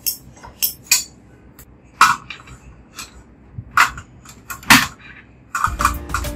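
Separate sharp clicks and knocks of kitchenware being handled: a metal spoon against a ceramic bowl, then a metal wok set and moved on a portable gas stove. Near the end a steady low hum sets in.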